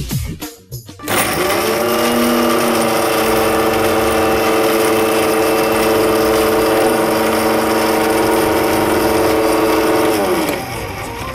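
Electric mixer grinder with a steel jar grinding milk biscuits into powder. The motor starts about a second in, runs steadily at high speed, and winds down with a falling pitch near the end.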